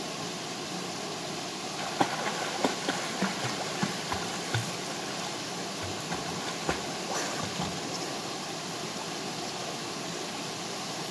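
Steady rush of a stream and small waterfall, with a series of short splashes from about two seconds in to about eight seconds in as a swimmer strokes and kicks through the pool.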